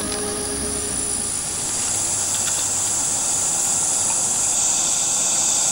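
Dense, shrill insect chorus at dusk, a steady high hiss that grows louder from about halfway in, as background music fades out in the first second.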